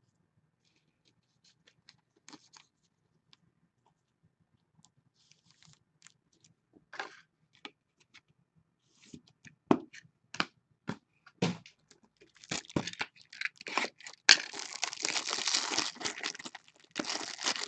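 Trading card being handled in plastic: scattered soft clicks and rustles, then from about halfway a dense run of crinkling and tearing plastic.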